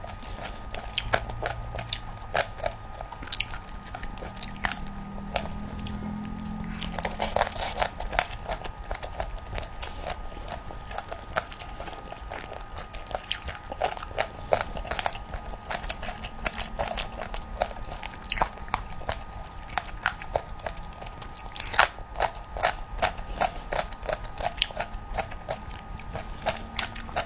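Close-miked eating of sauced chicken feet: biting and chewing with many irregular sharp, wet clicks and crunches of skin and cartilage.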